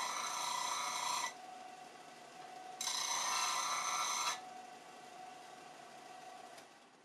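Disc sander grinding a small steel part held in locking pliers against its abrasive disc, in two passes of about a second and a half each, grinding down the screw threads that stick through a 1/8 inch steel mount. Between the passes and after them the sander runs on its own with a lower, steady hum.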